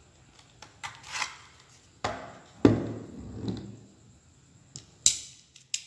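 Plastic clicks, knocks and rubbing as a spring airsoft pistol's magazine is handled for loading with BBs. The loudest knock comes just under three seconds in, and a sharp clack comes near the end.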